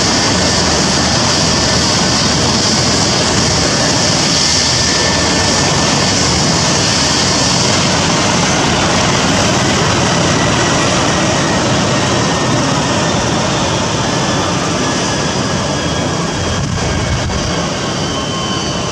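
Airbus H135 rescue helicopter running on the ground: a steady rush of turbine and rotor noise with a high whine. In the second half the whine slides slightly lower in pitch and the overall level eases a little.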